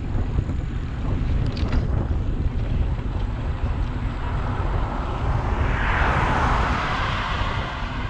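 Wind buffeting the microphone of a camera on a moving bicycle, heard as a steady low rush, with a passing vehicle's road noise swelling and fading over the second half.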